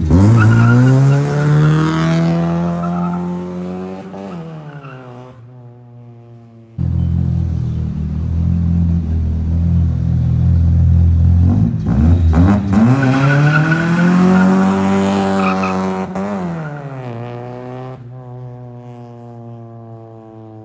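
Tuned hatchback's D15ZC engine accelerating hard in two separate runs. Each time the revs climb steeply, hold high, then fall away as the car pulls off and fades. These are test pulls after a remap, meant to cure an over-rich fuel mixture.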